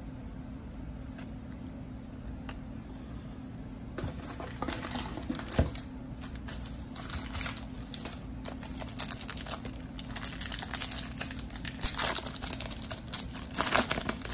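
Foil wrapper of a Donruss Optic basketball card pack crinkling as it is handled and torn open, in irregular crackles that start about four seconds in and grow busier toward the end.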